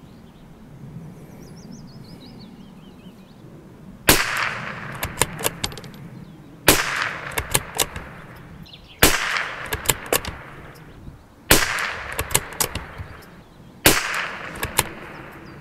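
Five single shots from a Tikka T1X bolt-action .22LR rifle firing subsonic Norma Match-22 match ammunition, spaced about two and a half seconds apart. Each shot is followed by a quick run of clicks as the bolt is worked to chamber the next round.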